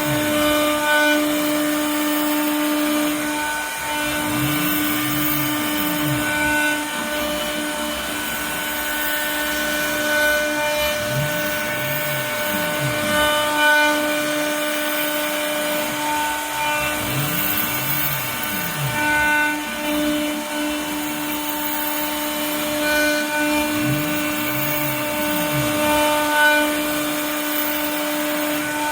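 CNC router running a job: a steady spindle whine, with the axis motors whirring up and falling back in pitch about every six seconds as the gantry moves back and forth.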